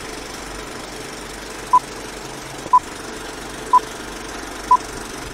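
Vintage film-countdown leader sound effect: a steady film-projector rattle and whirr, with a short high beep once a second on each number, four beeps starting a little under two seconds in.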